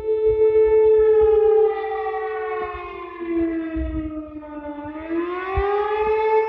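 Romanian emergency alert siren wailing: its pitch falls slowly over about four seconds, then rises again near the end.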